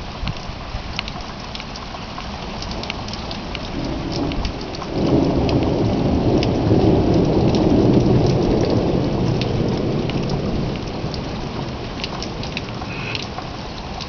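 Thunderstorm: rain pattering with sharp drop ticks, and about five seconds in a long low roll of thunder swells up and slowly fades over several seconds.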